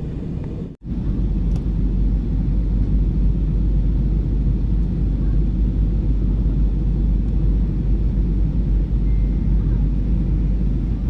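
Steady rumble of an Airbus A320 airliner in flight, engine and airflow noise. About a second in, the sound cuts out briefly and comes back louder and deeper.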